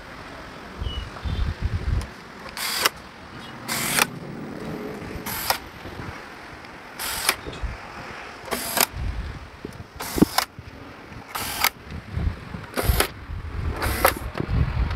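Cordless electric screwdriver running screws into an amplifier cabinet's metal rear panel: about nine short whirring bursts a second or two apart, with low handling bumps in between.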